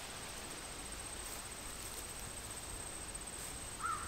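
Quiet outdoor ambience: a steady hiss with a continuous high-pitched insect trill, and a short wavering chirp near the end.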